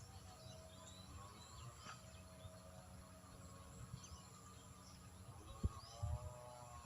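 Faint outdoor ambience with small birds chirping now and then, and two dull thuds close together near the end.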